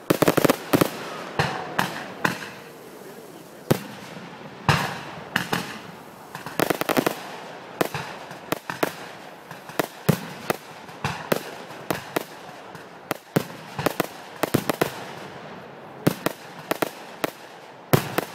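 Aerial fireworks going off in quick, irregular volleys of sharp bangs, with clusters of reports every second or two.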